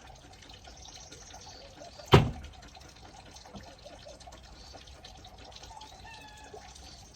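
A single sharp knock about two seconds in, much louder than anything else, over a steady faint background hiss with a few faint high chirps near the end.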